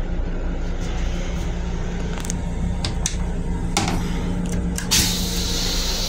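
Steady low hum and rumble of an M7 railcar, with a few clicks and knocks as the plastic toilet seat is handled and lifted. About five seconds in, a steady hiss starts.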